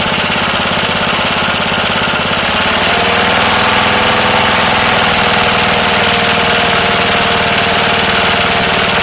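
Small single-cylinder lawnmower engine running steadily with HHO (hydrogen-oxygen) gas fed into it through a hose. About three seconds in it gets slightly louder and a thin steady whine comes in over the engine note.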